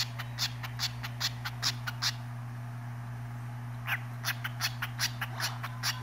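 Cockatiel chirping in quick runs of short, sharp chirps, about five a second. The chirps pause about two seconds in, a single falling chirp comes near four seconds, and the run starts again, over a steady low hum.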